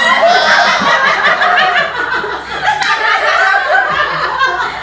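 A group of women and girls laughing together, several voices overlapping throughout.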